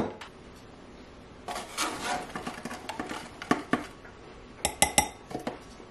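Metal measuring cup and measuring spoons scraping and clinking against a glass mixing bowl as flour and baking soda are scooped and measured: a run of light scrapes and taps a little over a second in, then scattered sharp, ringing clinks in the second half.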